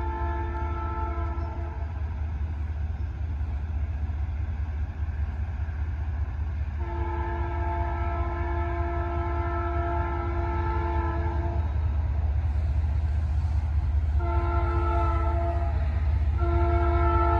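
Approaching locomotive's multi-chime air horn sounding a chord in the grade-crossing pattern: a long blast that ends about two seconds in, another long blast from about seven to twelve seconds in, a short blast, then a long one starting near the end. Under it a steady low engine rumble grows louder as the train comes closer.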